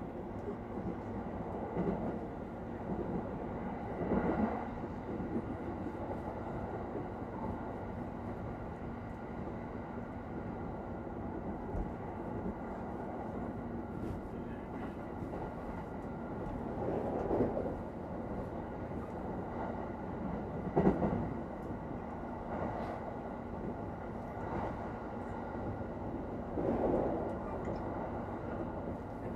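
Cabin noise inside a Japanese electric commuter train running between stations: a steady rumble of wheels and motors. A few louder swells of rattling come through the floor along the way.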